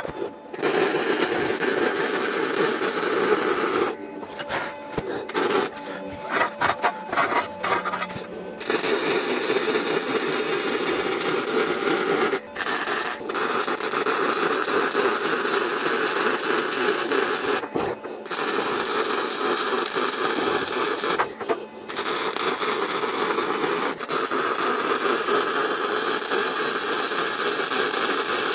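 Electric welding arc crackling through a run of tack welds on steel, in short stop-start bursts at first and then longer welds broken by brief pauses.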